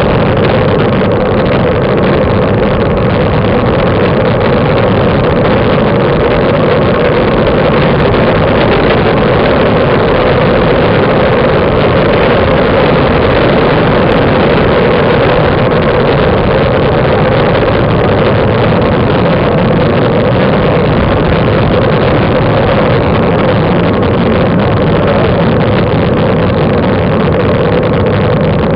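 Steady rush of wind over the microphone of a camera mounted on a moving road bicycle, mixed with tyre noise on asphalt, loud and even throughout.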